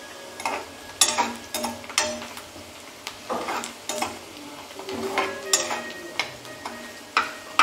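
Steel spatula scraping and knocking against a black kadhai while stirring sliced onions frying in oil, a dozen or so irregular strokes over a light sizzle.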